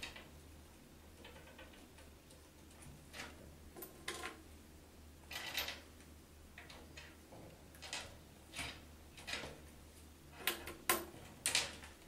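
Scattered light clicks and taps, about ten in all, irregularly spaced and coming closer together near the end: small metal tokens knocking against the plexiglass test enclosure as African grey parrots pass them to each other and to a researcher's hand.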